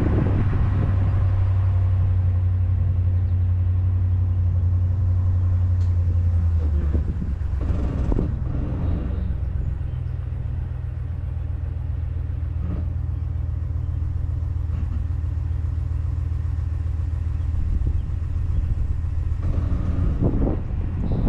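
Truck engine running steadily at low revs; about seven seconds in, its note drops a little in pitch and loudness and it runs on steadily.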